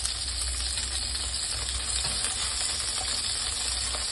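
Chicken wings sizzling in hot oil in a non-stick frying pan, browned golden on both sides, with a few light clicks of metal tongs as pieces are lifted out. A steady low hum runs underneath.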